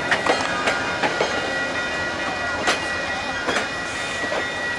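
VIA Rail passenger cars rolling slowly past at close range as the train pulls out, with a steady rumble and a handful of irregular clacks as the wheels pass over rail joints. A faint steady high whine sits over it.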